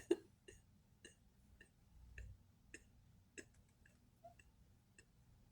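Faint, irregular ticks and clicks, roughly one or two a second, the loudest right at the start.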